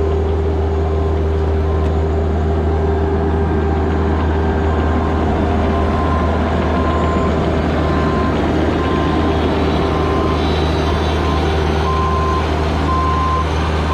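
Bobcat E26 mini excavator's diesel engine running steadily, with its travel alarm beeping about once a second from roughly midway as the machine moves.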